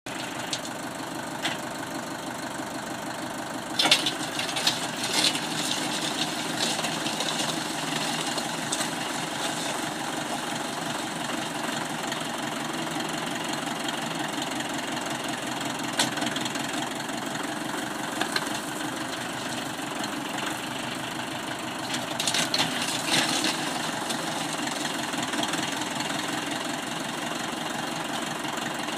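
Tractor engine running steadily while driving a PTO-powered post-hole auger boring into stony soil. Sharp clatters and scrapes come in a cluster about four seconds in and again a few seconds before the end.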